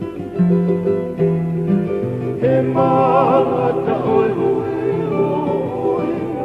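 A song with instrumental accompaniment of held chords. A solo voice comes in singing with vibrato about two and a half seconds in.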